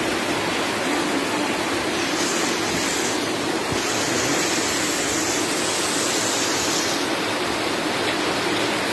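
Heavy rain pouring down and floodwater rushing along a flooded street: a steady, loud rushing noise.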